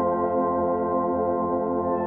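Ambient background music: a sustained, slowly pulsing organ-like drone chord.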